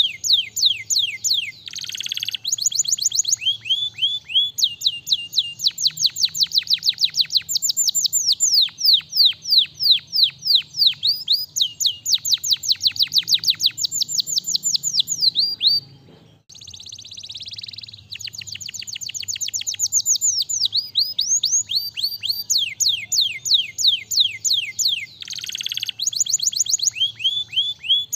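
Domestic canary singing: long trills of rapid, repeated falling whistled notes, broken a few times by short harsh, buzzy phrases, with a brief break about halfway through.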